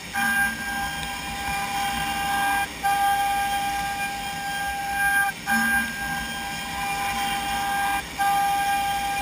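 CNC machining centre's router spindle giving a steady high whine while milling. The whine breaks off briefly about every two and a half to three seconds.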